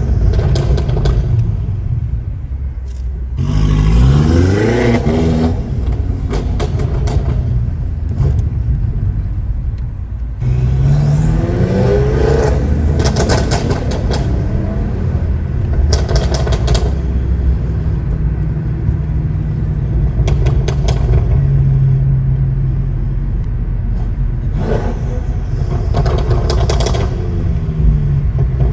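Tuned BMW F10 M5 Competition's twin-turbo V8 accelerating hard several times, its pitch rising through each pull (about four seconds in, around ten to thirteen seconds, and again near the end), with crackles and pops from the exhaust between pulls.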